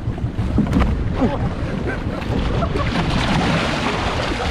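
Wind buffeting the microphone over the wash of sea water, the water hiss growing a little louder about three seconds in.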